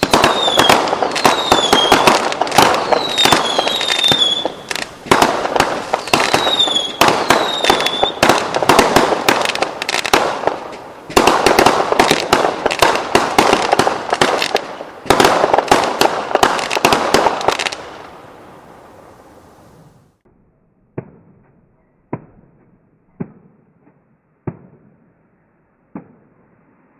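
Fireworks and whistle fireworks: a dense, rapid barrage of sharp bangs and crackles with shrill whistles that slide down in pitch. The barrage dies away about 18 seconds in, leaving a handful of single pops about a second apart.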